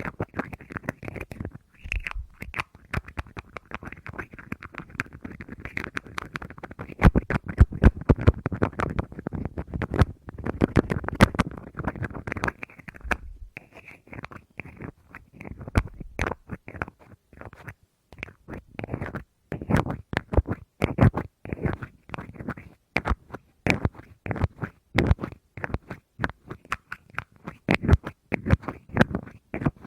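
Close-miked fingers tapping rapidly and scratching on a hard object: a dense, irregular run of sharp taps over a scratchy rustle, easing briefly about halfway through.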